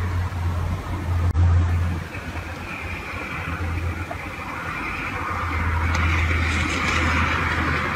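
Road vehicle passing beyond an open window: a low engine hum with a hiss that builds and is loudest near the end.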